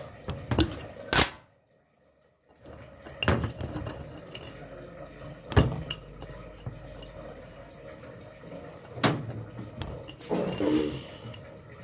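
Cutlery and dishes clinking and knocking as a spoon is fetched: about five sharp, separate clinks spread over several seconds, with a short near-silent gap about a second and a half in.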